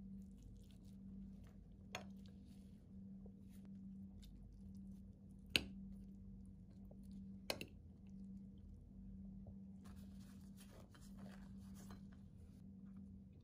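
Stainless knife and fork cutting a grilled salmon fillet on a ceramic plate: three sharp clinks of metal on the plate, the loudest about halfway through, over a faint steady hum. Near the end comes soft crinkling as a sheet of thin flatbread is handled.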